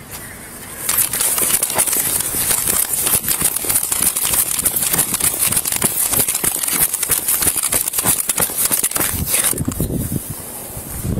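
Scratchy rustling and crackling of a body-worn camera rubbing against the officer's uniform as he moves quickly on foot, starting about a second in and easing off near the end.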